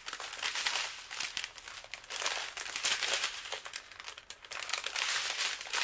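Plastic packaging crinkling as hands handle small plastic bags of diamond-painting drills and the canvas's plastic wrapping, in many short crackling rustles.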